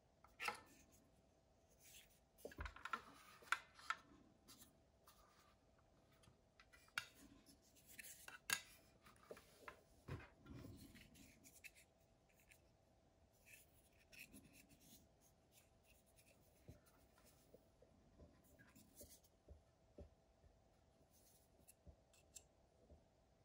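Faint handling noises from a Milwaukee M18 Fuel circular saw being turned and adjusted by hand: scattered plastic clicks, taps and rubs, busiest a few seconds in and again around the middle. A faint steady hum runs underneath.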